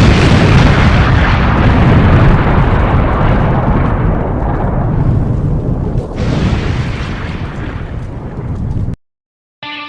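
A loud, long explosion-like boom and rumble, as in an intro sound effect, starting suddenly and slowly dying away before cutting off abruptly about nine seconds in. Music starts just before the end.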